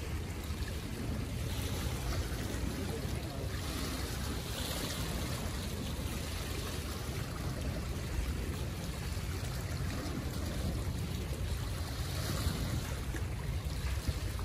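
Small sea waves washing against the shoreline rocks: a steady wash with two slightly louder surges, about five and twelve seconds in, over a low steady rumble.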